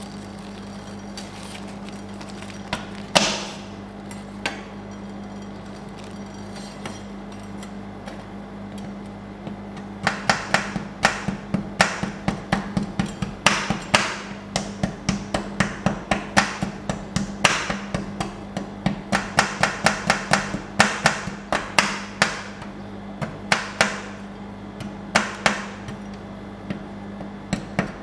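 Two metal scraper spatulas chopping a chocolate bar on the steel cold plate of a rolled-ice-cream machine. Quick, sharp metal taps come about three a second from about ten seconds in, over a steady low hum.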